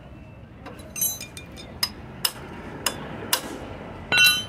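Metal hand tools knocking and clinking against a motorcycle engine's exposed crankcase and crankshaft: about five sharp knocks, irregularly spaced, then a louder ringing clink near the end.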